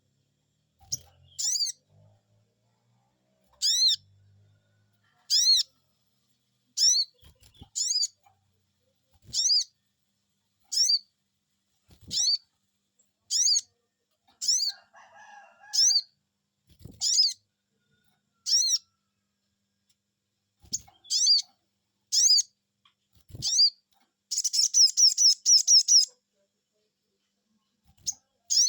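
Sogon bird calling 'cuiit cuiit': high, thin chirps, mostly in pairs, repeated about every second and a half, with a quick run of about eight chirps near the end. The call is used as a lure to make other sogon birds answer.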